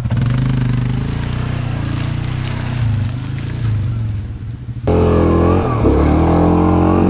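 Yamaha Grizzly 700 ATV's single-cylinder engine revving under load as the quad tries to push through deep mud. About five seconds in it turns abruptly louder and revs higher, wavering up and down.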